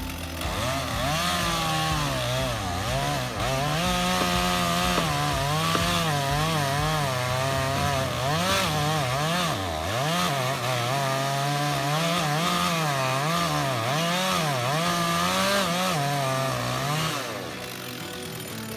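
Chainsaw running at high revs while cutting wood, its pitch wavering up and down all the time as it works through the cut. It stops about 17 seconds in.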